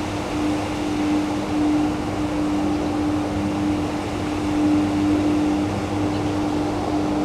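An unexplained steady droning hum, one held tone that swells and dips in strength over a constant rushing noise, of the kind people report as 'sky trumpets'.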